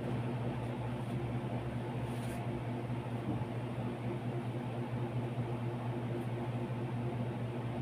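Steady low machine hum with an even hiss, unchanging throughout, with a faint brief rustle about two seconds in.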